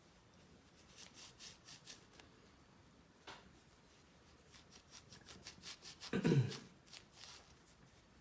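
Polishing cloth rubbed in short strokes over a metal sonic screwdriver prop replica, with a brief low bump about six seconds in.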